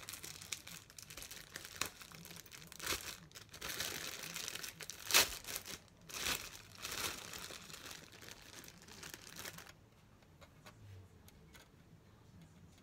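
Thin plastic bag of sliced bread crinkling and rustling as it is untwisted and handled, with a sharp crackle about five seconds in. After about ten seconds the crinkling stops and only a few faint taps remain.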